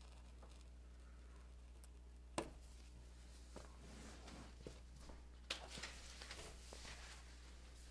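Cut pieces of seal skin being handled and shifted on a table: soft rustling with small ticks in the second half, over a steady low room hum. A single sharp tap comes about two and a half seconds in.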